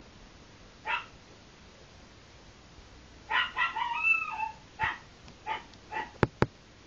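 A dog barking in short yaps, several in a row with a longer run of calls around the middle, followed by two sharp clicks near the end.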